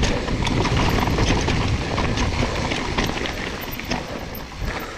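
Mountain bike descending a rocky dirt trail: tyres crunching and rolling over loose stones, with a constant clatter of small knocks and rattles from the bike over the bumps, easing off a little near the end.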